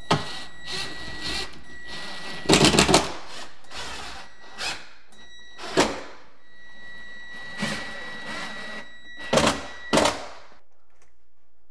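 Ryobi cordless driver driving 2-inch cabinet screws through a steel shelving rail into a wall stud: a steady high motor whine with several short loud spurts as the screws are run in, the loudest a quick run about two and a half seconds in. It stops about ten and a half seconds in.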